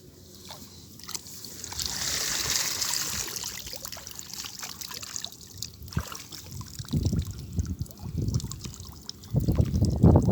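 Water trickling for a couple of seconds, then splashing and sloshing that grows louder near the end.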